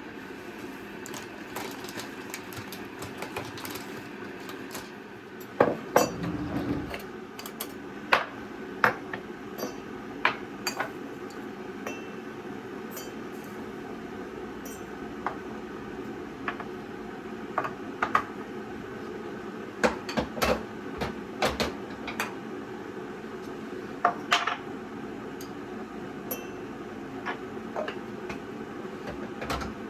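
Irregular clinks and knocks of dishes and utensils being handled and set down, a few sharper knocks standing out, over a steady low background hum.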